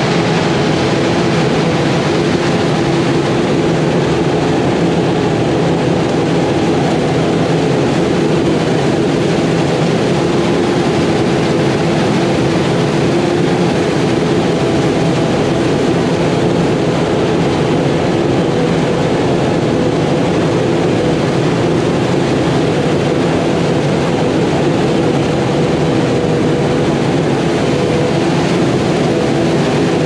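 Claas Jaguar forage harvester running steadily under load as it chops corn for silage, with a tractor engine running alongside. It is one constant, even machine sound with no breaks.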